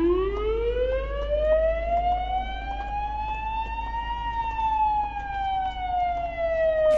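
Fire engine siren wailing in one slow sweep, rising in pitch for about four seconds and then falling, over a low steady rumble.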